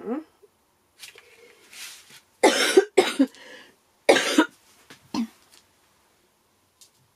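A woman coughing, four harsh coughs in a short fit that starts a couple of seconds in. It is the lingering cough of a voice still not recovered after an illness.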